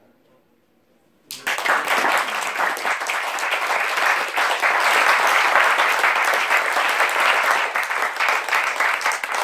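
Audience applauding, starting suddenly about a second in and carrying on steadily.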